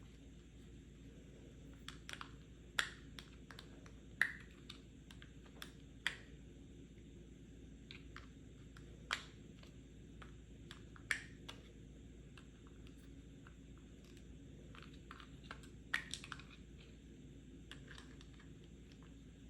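Tapping on a medicine/pill box: sharp, separate taps at an irregular, unhurried pace, some single and some in quick little clusters, with pauses between.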